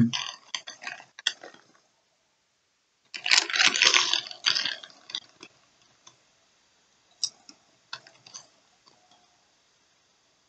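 Drinking from a 40-ounce glass bottle of malt liquor. A burst of gulping and liquid sloshing comes about three seconds in, with scattered light clinks and taps of the bottle before and after it.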